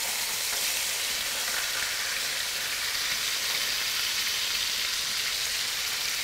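NY strip steaks sizzling in hot olive oil in a frying pan, a steady hiss of searing meat.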